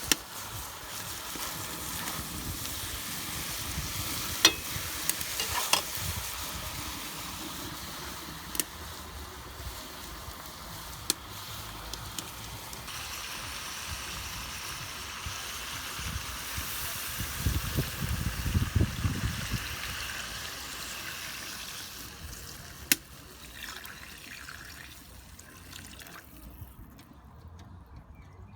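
Meat and vegetables sizzling as they fry for shurpa, with occasional sharp clicks from stirring. There is a low rumble about two-thirds of the way through, and the sizzle fades near the end.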